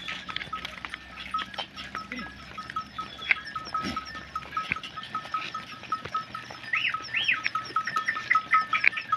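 A herd of goats on the move, bleating now and then, with many short clicks from their hooves on the road. A fast, even, high chirping pulse, about five a second, runs underneath.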